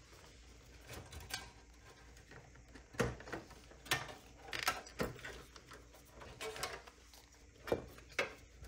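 Ribbon cables and power connectors being worked loose and pulled out of a computer case: scattered plastic clicks and knocks over a rustle of cable handling, the sharpest about three, four and five seconds in and again near the end.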